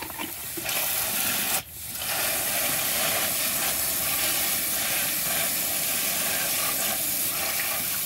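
Handheld water spray nozzle hissing steadily as it sprays a fine mist of water over plastic toys in a tub, with a short break about one and a half seconds in before the spray resumes.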